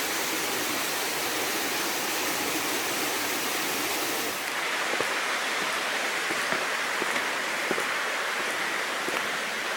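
Steady rush of running water, like a stream flowing below. About four and a half seconds in the hiss changes character, and a few faint clicks come through.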